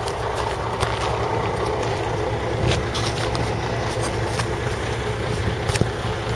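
MAN tanker truck's diesel engine running steadily, with a few light clicks over it.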